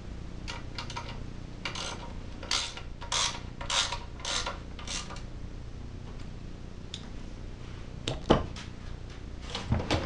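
Ratchet wrench clicking in a run of short strokes, tightening the engine's shroud bolts. A single sharp knock comes about eight seconds in, then a few more clicks near the end.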